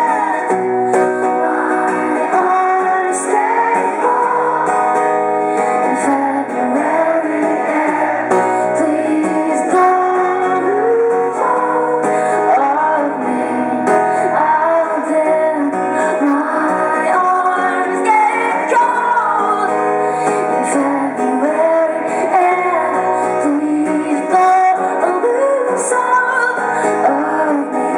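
Live acoustic song: a woman singing over strummed acoustic guitar.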